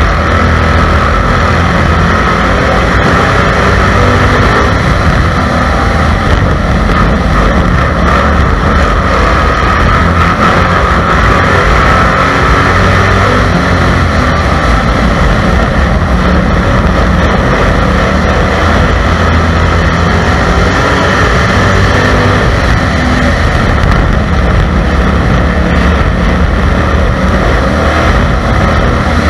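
Race car engine running hard under racing load, heard loud and steady from a camera mounted on the car itself.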